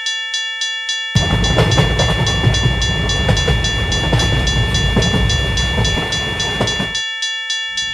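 Railroad crossing warning bell ringing in quick, even dings, about three a second. About a second in, a train passing over the crossing joins it with a loud rumble and clatter that cuts off abruptly about seven seconds in, leaving the bell ringing alone.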